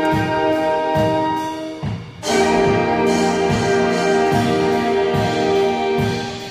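Saxophone choir with brass and rhythm section playing a funk tune: held horn chords over a bouncing bass line. The band stops short for a moment about two seconds in, then comes back in together.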